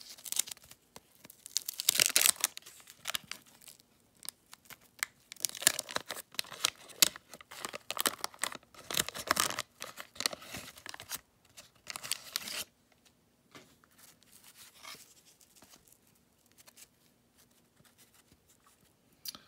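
A 1989 Donruss wax-paper card pack being torn open and crinkled by hand: repeated tearing and crinkling of the wrapper through roughly the first twelve seconds, then only faint rustling as the stack of cards is handled.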